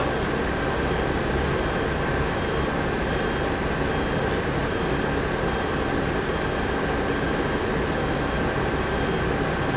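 Volvo B10M bus's turbocharged diesel engine running steadily from inside the cabin, with an even rumble and a steady high turbo whistle over it.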